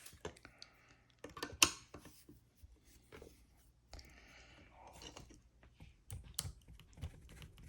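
Scattered light clicks and knocks of a tool and hands working a plastic door-lock cylinder clamped in a vise, as the core is forced to twist under heavy pressure; the sharpest knocks come about a second and a half in and again near the end. The cylinder holds and does not turn.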